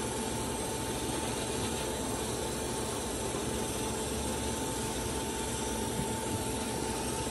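A tractor engine running steadily, with a steady hiss over it.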